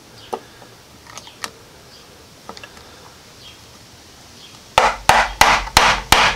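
A small CDI ignition box is knocked against a wooden bench top to shake out the sand and rocks packed inside it. There are faint small clicks and rattles at first, then about six sharp knocks in quick succession near the end.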